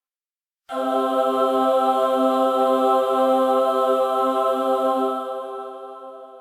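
Heavenly choir sound effect: a sustained chord of voices enters suddenly about a second in, holds steady, and fades away over the last second or so.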